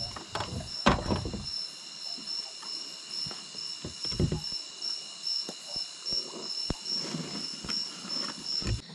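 Night insects, crickets, chirping in a steady pulsing trill, with scattered knocks and rustling from a fishing net being hauled in and handled by hand; the loudest knocks come about a second in and again at about four seconds.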